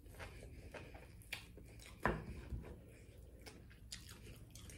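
Close-up eating sounds from fried pork chop: scattered soft mouth clicks and smacks of chewing, with one louder click about two seconds in.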